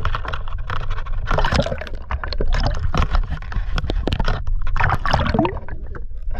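Water sloshing and splashing against the hull of a small outrigger boat, in irregular splashy bursts over a steady low rumble.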